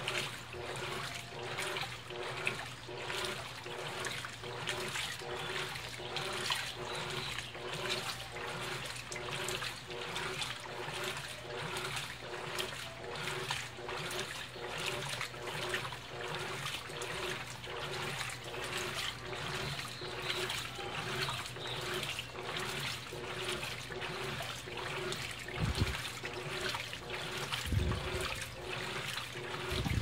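Colormaq 15 kg top-load washing machine agitating a load of jeans: water and heavy denim slosh in a regular rhythm as the agitator swings back and forth, over a steady motor hum. Two low thumps come near the end.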